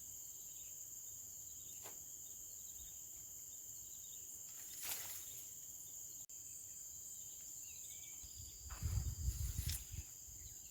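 Insects, crickets among them, chirring steadily at a high pitch, faint. About nine seconds in there is a louder low rumbling on the microphone for a second or so.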